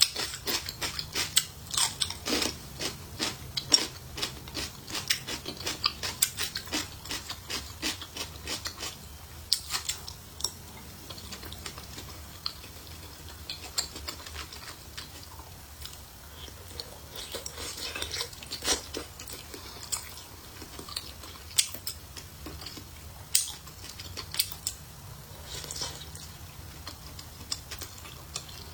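Close-miked eating of chili-oil wontons: chewing and biting with sharp wet clicks, quick and dense for the first several seconds, then sparser.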